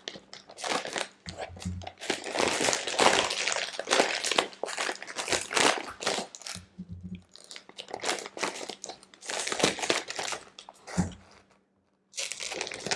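Plastic snack packet being torn open and crinkled, an irregular crackling rustle with a short pause near the end.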